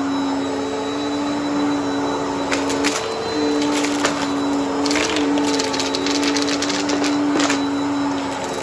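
Vacuum cleaner running with a steady motor hum that dips briefly now and then as it is pushed and pulled. Through the middle it crackles with many quick clicks of crunchy debris being sucked up through the brush roll.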